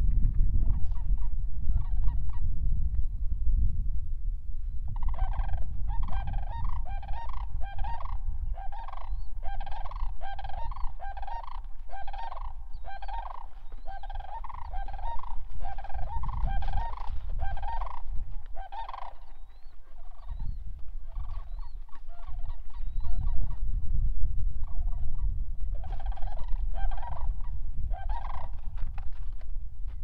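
Large birds giving a long run of loud honking calls, about two a second, starting about five seconds in and stopping just before the middle, with another short run near the end. A low, steady rumble lies under the calls throughout.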